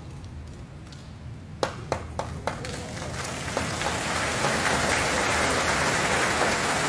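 Sumo arena audience clapping: a few scattered claps swell into steady applause about three seconds in, as the two wrestlers set for the charge.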